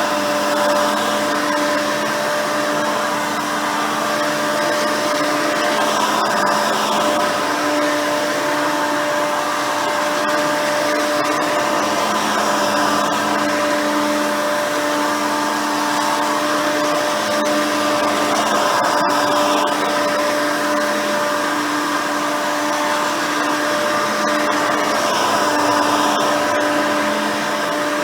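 Hoover Elite 350 upright vacuum with a 5-amp motor and seven-blade fan running steadily, giving a high whine over a rush of air, with a lower hum that swells and fades every second or two.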